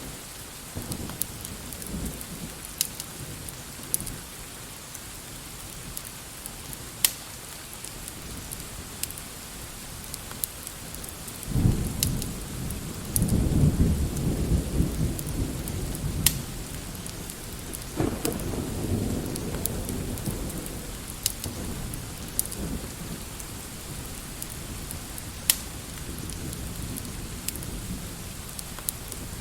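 Steady rain with a long low roll of thunder that builds about twelve seconds in and rumbles on for several seconds before fading. Sharp crackles of a wood fire pop now and then throughout.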